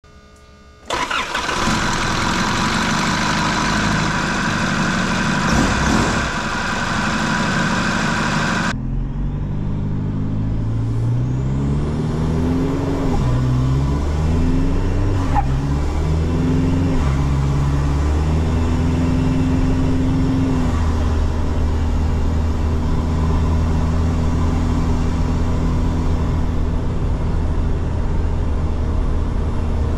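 A loud hissy noise that cuts off sharply several seconds in, then an engine revving up and down a few times before settling into a steady run.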